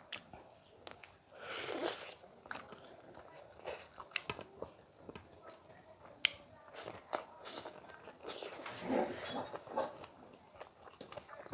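Close-up mouth sounds of a person eating curried cauliflower by hand: biting, wet chewing and small lip smacks and clicks, with two louder stretches of chewing about two seconds in and again about nine seconds in.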